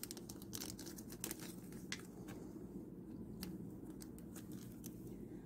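Faint clicks and rustles of clear plastic sleeves and paper pieces being handled, thinning out after the first couple of seconds, over a steady low hum.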